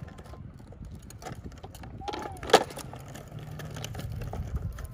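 Plastic wheels of toddlers' ride-on trikes rumbling over a concrete sidewalk, with scattered clicks. A single sharp knock about halfway through is the loudest sound, just after a short high voice.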